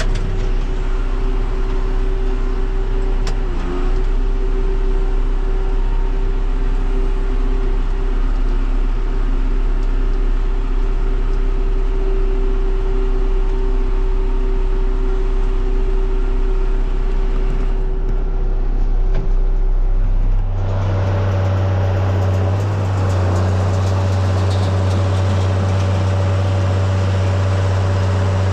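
Farm tractor diesel engine running steadily at constant speed. About twenty seconds in, the sound switches abruptly to a different, deeper steady engine note.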